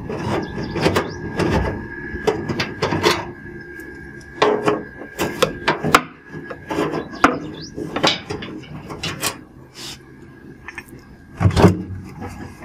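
Screwdriver working the screws out of a front-loading washing machine's cabinet. Scattered clicks, scrapes and knocks of metal and plastic come through as the panel parts are handled.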